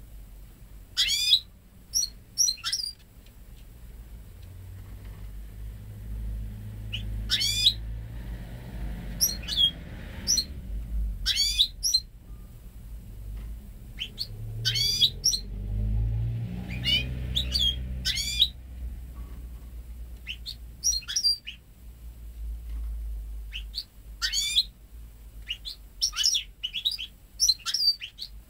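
Goldfinch × canary hybrid (mule) singing in short bursts of quick, sweeping high notes, phrase after phrase with brief pauses between. Its song is made up entirely of goldfinch phrases.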